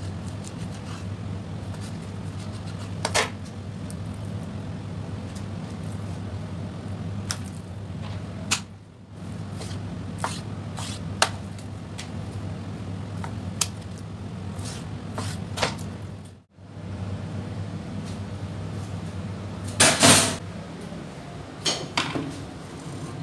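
Knife cutting queen fish fillets on a cutting board: scattered light taps and knocks of the blade and the handled fish over a steady low hum. A louder clatter comes near the end.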